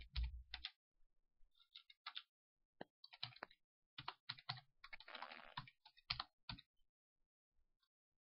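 Faint typing on a computer keyboard: single keystrokes in irregular clusters, with a quicker run of keys about five seconds in.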